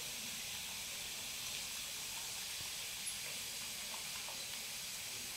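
Potato sticks deep-frying in a pan of hot oil, a steady sizzling hiss; the chips are nearly done.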